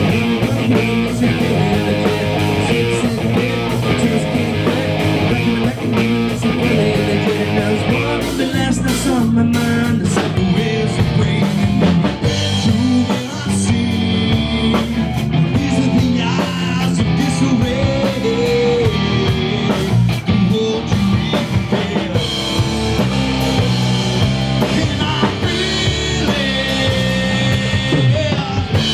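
Live rock band playing: male lead vocals on a handheld microphone over electric guitar, bass guitar and drum kit.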